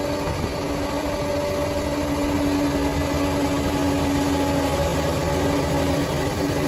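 Bulldozer's diesel engine running steadily, with a thin steady whine over the engine note that fades near the end.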